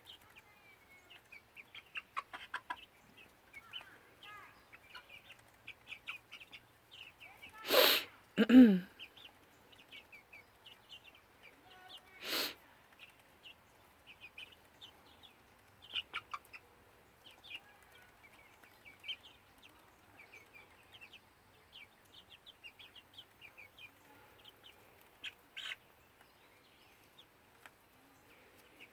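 Backyard hens clucking and chirping softly with scattered short calls. Two louder, sharper sounds stand out, about eight and twelve seconds in, the first falling in pitch.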